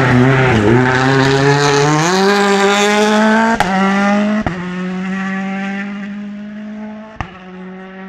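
Hyundai i20 WRC rally car's turbocharged four-cylinder engine at full throttle as it passes and pulls away. The engine note rises and then holds high, broken by three sharp cracks, and fades as the car goes off down the road.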